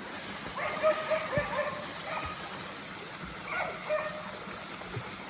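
A dog whining and yipping in a few short, high pitched cries, about one second in and again near four seconds.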